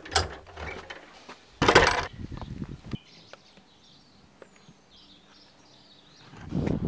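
Open-air ambience with faint, high bird chirps, after a brief loud clatter about two seconds in.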